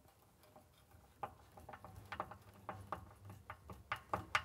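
Hand screwdriver driving a screw into a steel bracket, making a series of small, irregular clicks that start about a second in and grow louder toward the end.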